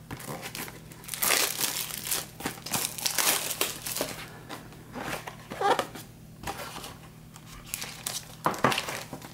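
Plastic shrink wrap crinkling in irregular bursts as it is handled and pulled off a trading card box.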